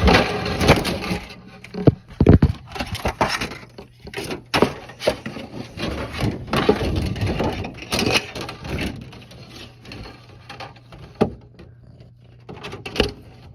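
Objects being handled and shifted by hand: repeated scraping, rustling and knocking of hard pieces, with sharp knocks about two seconds in and near the end.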